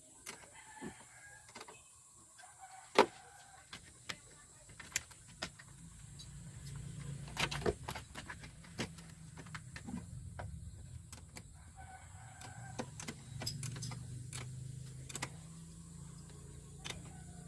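Scattered sharp clicks and knocks, the loudest about three seconds in, over a low steady hum that comes in about six seconds in.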